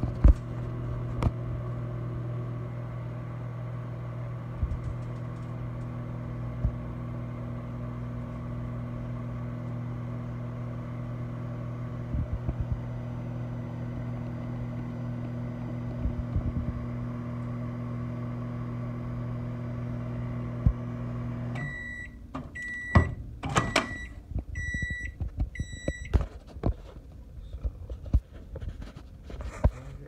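Danby microwave oven running with a steady low hum that cuts off suddenly about 22 seconds in. It then beeps about five times, roughly once a second, to signal the end of the cooking cycle, with a few sharp clicks and knocks among the beeps.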